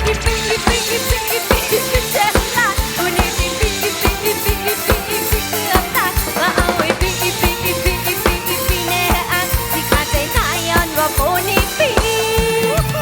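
Live band music: a drum kit keeps a steady beat under bass and a bending, wavering lead melody line, with no singing.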